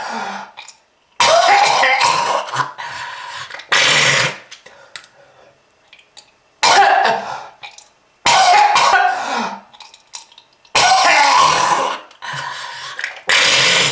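A person's harsh, hacking smoker's cough: about six loud coughing fits a couple of seconds apart, with throat clearing between them.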